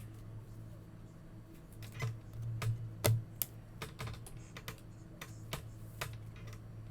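Scattered light clicks and taps, irregular and busiest a couple of seconds in, over a steady low hum.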